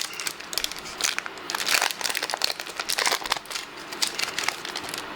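Foil wrapper of a Pokémon TCG booster pack crinkling and crackling as it is handled and opened by hand, busy for about three seconds and then settling to a few scattered crinkles.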